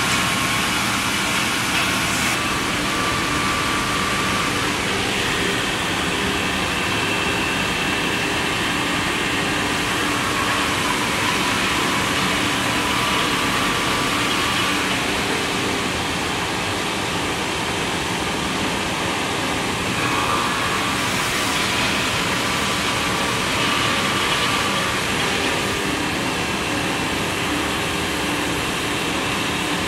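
Woodmaster WM-1500A2 two-spindle CNC wood lathe running and cutting two wooden blanks at once: a loud, steady machine noise with the hiss of the tools shaving wood, and faint steady tones that come and go.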